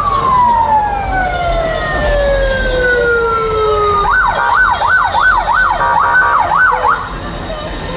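Siren sounding: a held wail winds slowly down in pitch over about four seconds, then switches to quick up-and-down sweeps, about two a second, for some three seconds.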